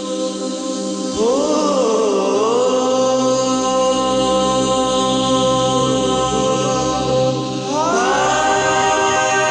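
Song intro: long wordless sung phrases over a steady drone. The first phrase comes in about a second in, rising and wavering down and back up; a second phrase rises near the end and is held.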